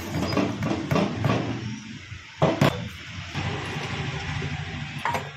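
Dry whole spices pouring and rattling into a steel mixer-grinder jar, followed by two sharp knocks about two and a half seconds in.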